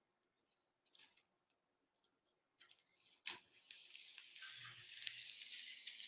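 Scissors cutting through a large folded plastic bag. A few faint clicks, then a sharp snip about three seconds in, followed by a steady crinkling hiss of plastic that grows louder as the blades slide along the fold.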